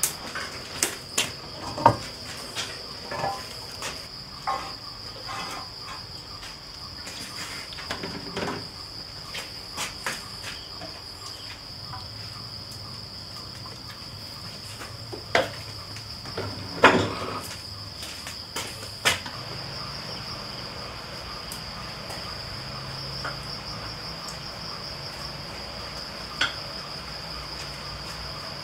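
A steady, high-pitched insect trill, with scattered knocks and clatters over it, the loudest about two seconds in and again around seventeen seconds.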